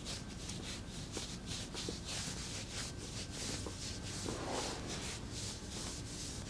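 Hands rubbing over skin and clothing in quick repeated massage strokes, a few a second, with faint light clicks.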